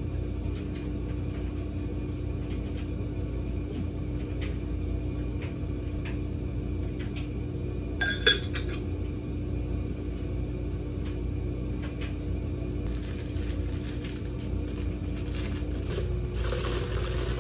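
A glass mug clinks twice with a short bright ring about eight seconds in, amid a few light handling knocks over a steady low hum.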